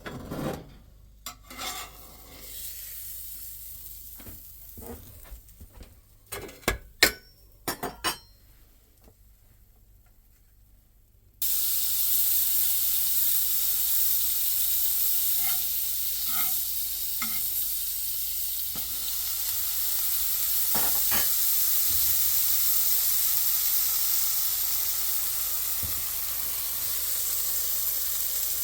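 A few light clicks and knocks of utensils and cookware, then about eleven seconds in a loud, steady sizzle starts suddenly as a grilled ham and cheese sandwich fries in a hot pan.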